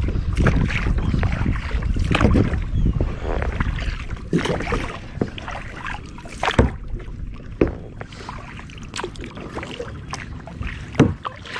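Paddle strokes splashing and dipping in sea water as a small paddled boat is driven along, quick and busy for the first few seconds, then quieter with a few separate sharp splashes.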